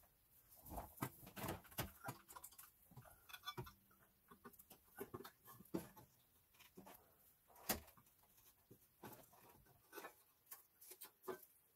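Faint, scattered clicks and light knocks of metal parts being handled as a turbocharger is set into place on a Mercedes OM642 3.0 V6 diesel engine, with one sharper click about two-thirds of the way in.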